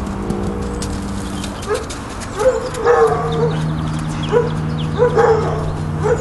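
A dog barking, about seven short barks starting a couple of seconds in, over a steady low hum.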